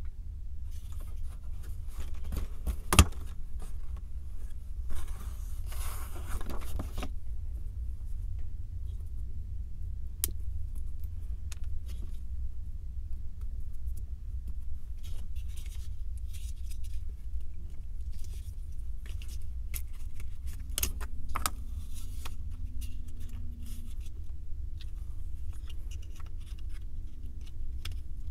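Small 3D puzzle pieces being handled and fitted together: scattered light clicks and scrapes, with one sharp click about three seconds in and a longer scrape a couple of seconds later, over a steady low hum.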